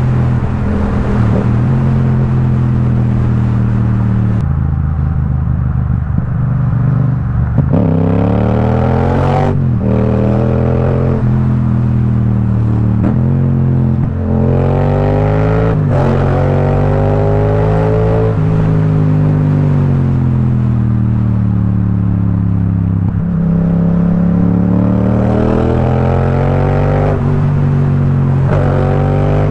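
Yamaha XSR700's 689 cc parallel-twin engine through an Akrapovic carbon full-system exhaust, accelerating repeatedly through the gears. The pitch climbs and drops quickly at each upshift, with sharp shifts about 9½ and 16 seconds in. A steadier stretch of cruising with gentle swells follows, then another pull near the end.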